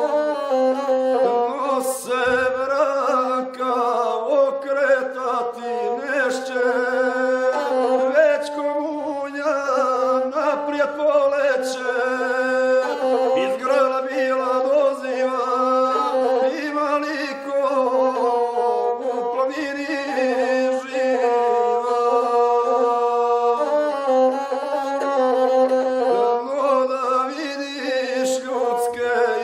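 Gusle, the one-string bowed South Slavic folk fiddle, playing a steady droning line while the player sings a sung epic in the guslar style over it.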